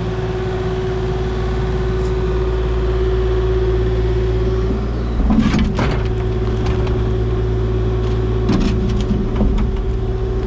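Kubota mini excavator's diesel engine running steadily with a constant hum while it lowers a rusted steel oil tank. A cluster of metal clanks comes about five seconds in as the tank is set down, and a few more knocks follow a few seconds later.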